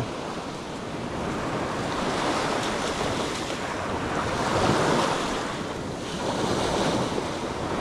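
Small ocean waves breaking and washing up onto a sandy beach, a steady rush of surf that swells to its loudest about two thirds of the way through.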